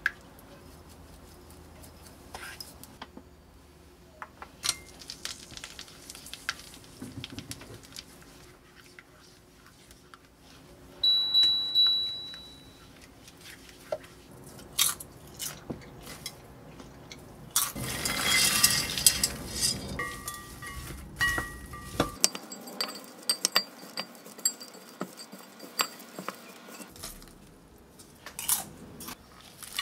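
A silicone spatula stirring butter into melted sugar in a pot for caramel, scraping and lightly clinking against the pot. About 18 seconds in comes a louder noisy rush, followed by a few short beeps.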